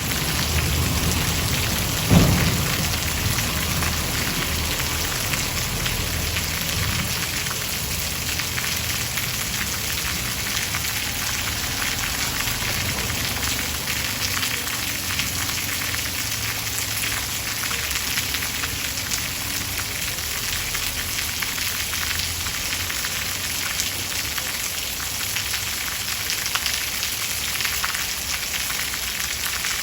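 Steady rain pouring down with no pause, a dense even hiss. A single brief low thump stands out about two seconds in.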